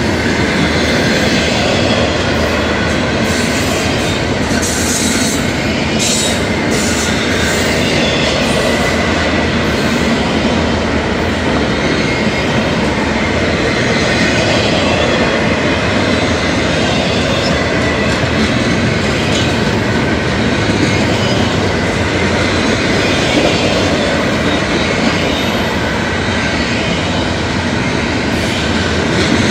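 Norfolk Southern intermodal train's double-stack container well cars rolling past close by: a loud, steady rumble of steel wheels on the rail.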